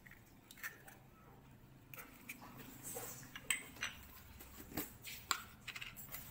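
An egg broken open over a stainless steel mixing bowl of flour, then quiet scattered clicks and clinks of kitchen things being handled.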